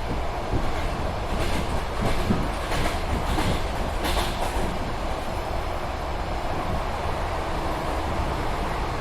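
A train running along the track, with a steady rumble and rattle. A few louder bursts of clatter come in the first half.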